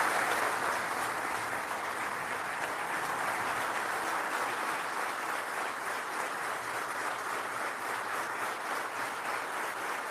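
Large crowd of parliamentarians applauding steadily.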